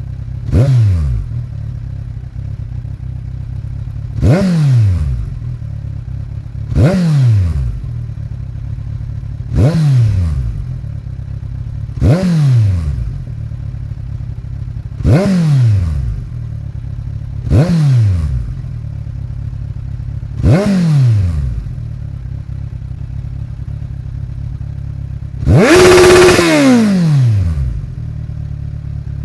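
2015 Kawasaki Z1000's inline-four engine through a Vance & Hines slip-on exhaust, idling and blipped in eight short throttle revs, each rising and quickly dropping back to idle. Near the end comes one longer, louder and higher rev of about two seconds.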